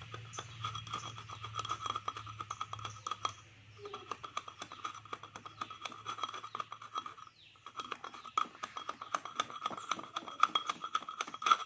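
Rapid, irregular tapping with a piece of wood on the stacked steel E-I laminations of a step-up transformer core, knocking the I-plates loose, with a steady metallic ringing under the taps. The tapping pauses briefly about three and a half seconds in and again a little past seven seconds.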